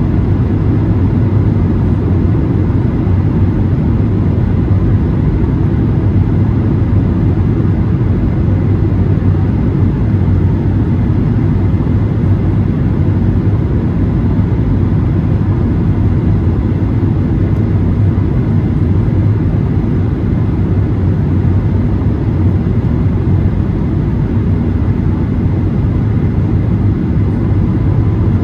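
Steady cabin noise of a Boeing 737-800 in flight on the descent: the CFM56-7B engines' low hum and rushing airflow, unchanging, with no thumps or surges.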